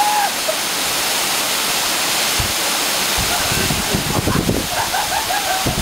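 Waterfall pouring steadily onto a mossy rock, a dense rushing hiss of falling water and spray. Low rumbling joins in from about three seconds in, with faint voices near the end.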